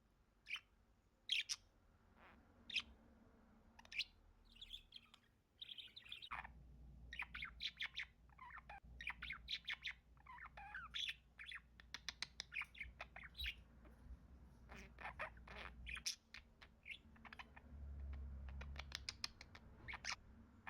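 Pet parakeet chirping and chattering: single short chirps a second or so apart at first, then a long run of rapid chatter from about six seconds in, with more scattered chirps near the end.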